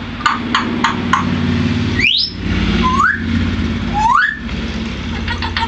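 African grey parrot making a run of short clicks, then three short rising whistles about a second apart, then more clicks. A steady low hum runs underneath.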